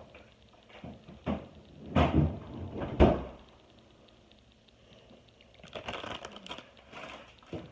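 Handling noise: a few knocks and bumps, the loudest about three seconds in, then a run of light clicks and rattles near the end.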